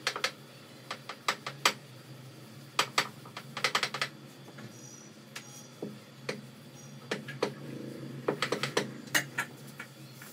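Wooden rolling pin clicking and knocking against a rolling board as roti dough is rolled out: irregular sharp clicks, some single and some in quick clusters.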